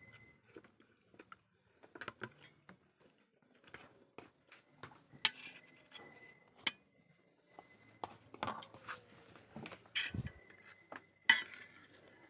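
Metal spoon clinking and scraping against a stainless steel plate while rice and noodles are scooped up. The knocks come irregularly, the loudest a little before the middle and near the end.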